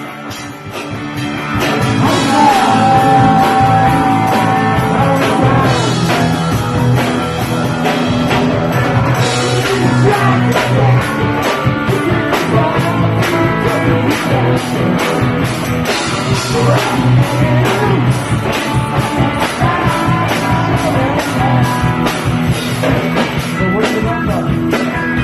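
Punk rock band playing live: distorted electric guitar, bass and drums, loud and driving, building up over the first couple of seconds, with a long held high note a few seconds in.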